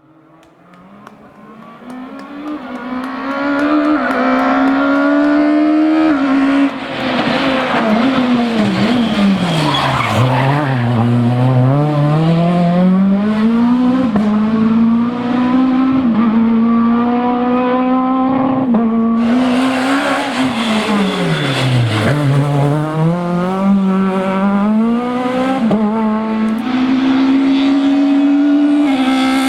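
Renault Megane Maxi rally car's two-litre four-cylinder engine at full throttle on a stage, growing louder over the first few seconds as it approaches, revving up through the gears and dropping sharply in pitch twice as it brakes and downshifts for corners. A brief hissing burst about two-thirds of the way through.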